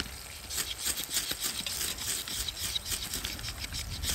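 A bushcraft knife scraping in short, quick strokes, about three or four a second, while trying to light feather-stick tinder in a fire pit.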